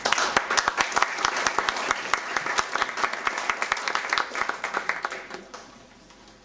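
Audience applauding, the clapping thinning and dying away about five and a half seconds in.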